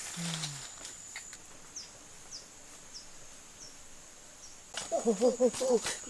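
Outdoor insect ambience: a steady high buzz fades out about a second in, followed by five short, high, falling chirps about half a second apart. Near the end a person's voice breaks in with a quick run of repeated syllables.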